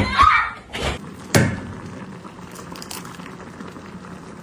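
A brief bit of voice at the start, then a single sharp knock about a second in, followed by a quiet steady room hum.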